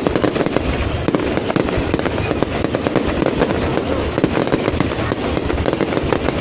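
Fireworks going off in a dense, continuous barrage of rapid crackling and popping, with no pause.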